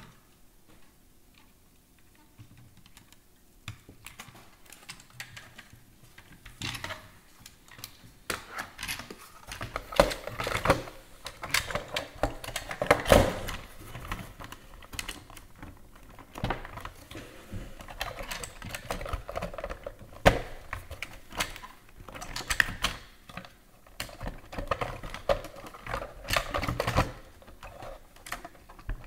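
Irregular plastic clicks, taps and knocks as the iRobot Braava 380T's plastic top cover is handled and pressed back onto its base, starting a few seconds in and loudest about ten and thirteen seconds in.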